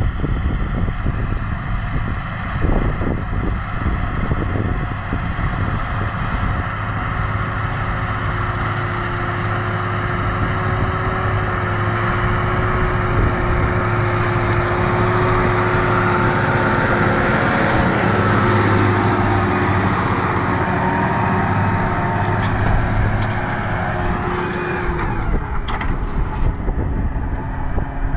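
John Deere 7215R tractor's six-cylinder diesel engine running steadily under load while pulling a plough, with a steady whine over the engine note. About 25 seconds in the pitch drops sharply and the whine fades, as the tractor passes by or eases off.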